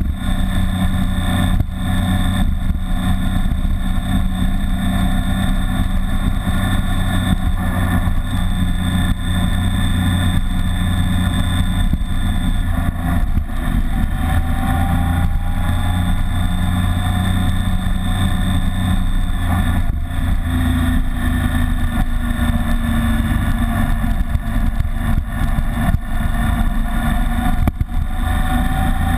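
BMW K75 motorcycle's three-cylinder engine running under way, a steady low rumble mixed with rushing ride noise; its pitch rises a couple of times, about halfway through and again a few seconds later.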